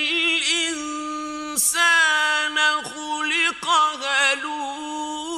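A male Quran reciter chanting in the mujawwad style: one voice in a high register, holding long drawn-out notes with wavering melismatic ornaments, with only short breaks between phrases.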